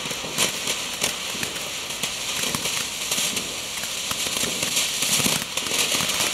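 Weco Chrysanthemen-Fontäne, a ground fountain firework, burning with a steady hiss and scattered crackles.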